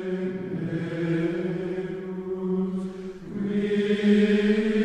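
Slow sacred choral chant with long held notes, stepping up to a higher note about three seconds in.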